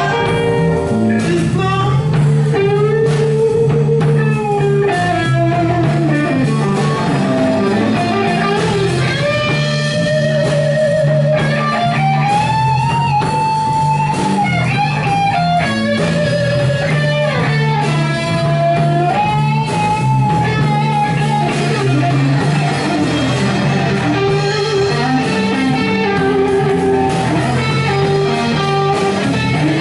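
Live rock band with an electric guitar taking an instrumental lead break on a Gibson, holding long notes and bending them up and down, over bass guitar and drums.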